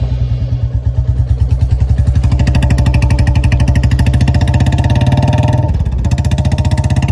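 Royal Enfield Classic 350's single-cylinder engine, fitted with a free-flow short-bottle silencer, pulling away under throttle in first gear with a loud, fast, even exhaust beat. The note drops briefly near the end as the bike shifts up a gear.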